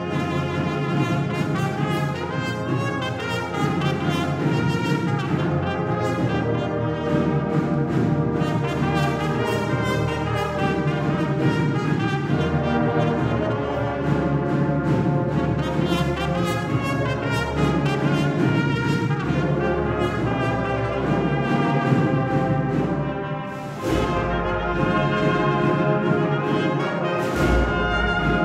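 Agrupación musical, a Sevillian processional brass band, playing a piece with many brass parts at once. The music dips briefly about 23 seconds in, then comes back in full with heavier bass.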